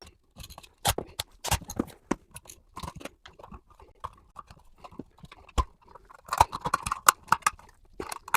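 Irregular crackling, crunching and snapping of a plastic old-work outlet box being worked out of its drywall hole, with a dense cluster of crackles about two-thirds of the way through.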